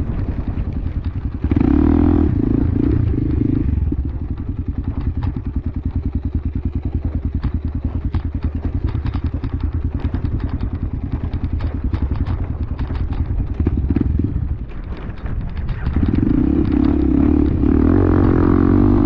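Dirt bike engine running while ridden off-road: the throttle opens up about one and a half seconds in and again near the end, with the engine chugging along at lower revs between and easing off briefly just before the last pull.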